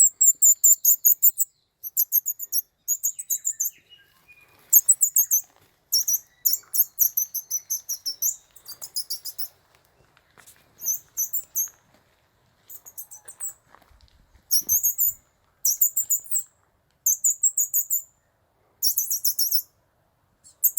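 Squeaky bird-lure call made by sucking air through a split dianella (turutu) leaf, its thin membranes vibrating like a reed: bursts of rapid, very high-pitched squeaks about a second long, repeated over and over with short pauses. The call is meant to draw in small birds such as fantails and robins.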